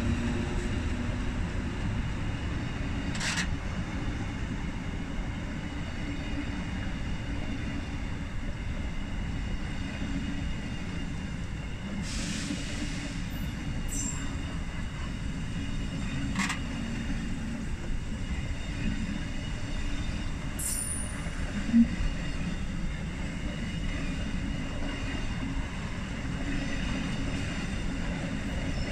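Train of red ex-DB Regio passenger coaches rolling slowly past, a steady rumble of wheels on rail with a few brief high wheel squeals and clicks, and one sharp knock a little past halfway.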